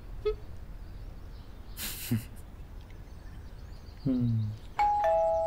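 Two-note doorbell chime, ding-dong, near the end: a higher note then a lower one, ringing on and fading. Before it, a short breathy laugh and a brief low hum from people at the table.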